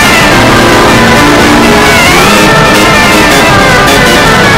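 Very loud, heavily edited music with guitar-like tones and a few sliding pitches, held at a constant, near-clipping level.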